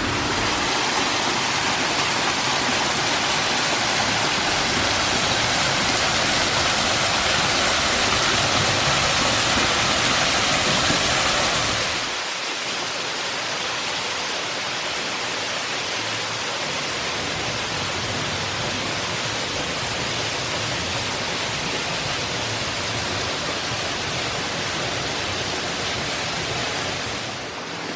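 Water running and splashing in a water feature, a steady rush of falling water; about twelve seconds in it changes abruptly to a softer, thinner rush.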